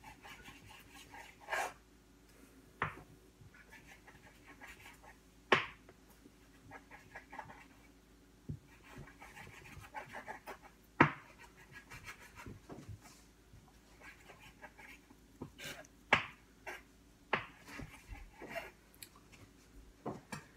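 A knife sawing and scraping on a cutting board in faint, scratchy strokes, with a few sharp knocks and clicks scattered among them, the loudest about five and eleven seconds in.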